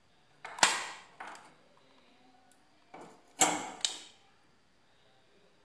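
Sharp knocks and clicks from handling a small circuit board, soldering iron and wires on a hard work surface, in two short clusters about half a second in and about three and a half seconds in.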